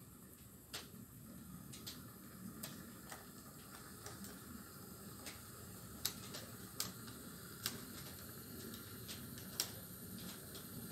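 HO scale model freight train rolling past on its track: a faint, steady low rumble with irregular sharp clicks from the wheels on the rails, the loudest few clicks coming in the second half.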